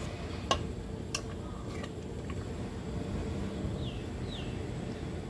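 Metal ladle stirring a pot of curry, clinking against the pot three times in the first two seconds over a low steady noise. Two short, high, falling chirps about four seconds in.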